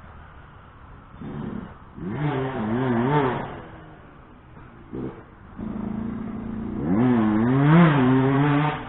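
2007 Yamaha YZ125 two-stroke dirt bike engine revving hard on the pipe. It comes in twice: first about two seconds in, then a short blip, then a longer run building from about five and a half seconds. The pitch wavers up and down with the throttle, then drops off sharply at the very end.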